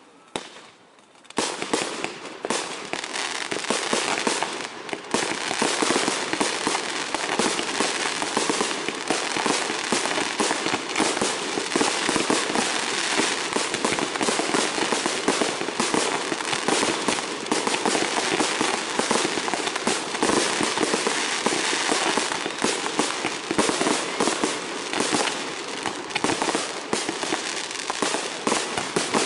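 Fireworks in a dense, continuous barrage: rapid launches, bangs and crackling overlapping without pause. A single bang sounds just after the start, and the barrage begins about a second and a half in.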